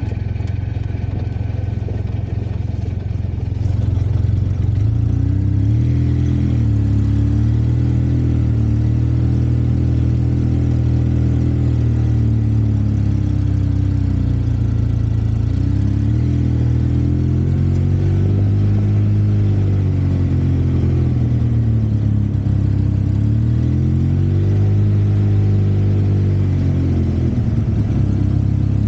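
Off-road vehicle's engine running under way, its pitch rising and falling again and again as it speeds up and eases off. It gets louder about four seconds in.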